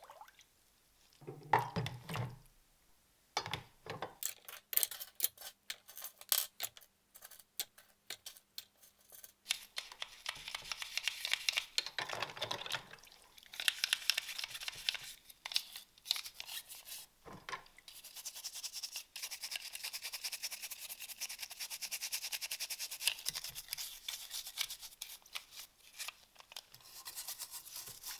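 Handling of a small model car's parts with scattered clicks and knocks, then fast continuous scrubbing strokes on the car's surface from about ten seconds in.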